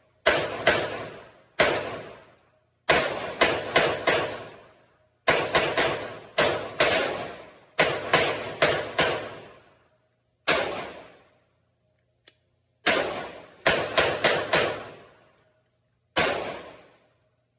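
A 9mm Glock 48 pistol fired about two dozen times, in irregular strings of single shots and quick runs of three to five, each shot echoing away over about a second. There are short pauses between strings.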